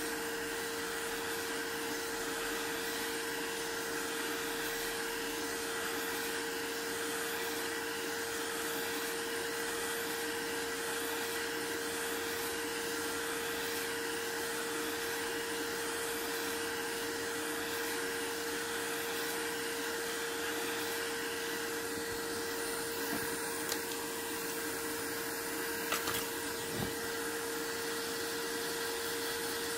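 Steady whir of a small electric blower motor with a constant hum. A few light clicks come near the end.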